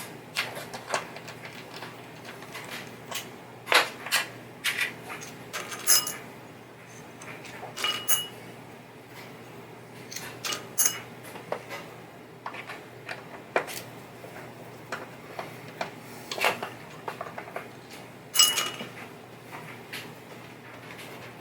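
Irregular clicks, clinks and clatters of hand tools and small metal pinball parts being handled while a playfield is taken apart. A few of the knocks ring briefly like metal.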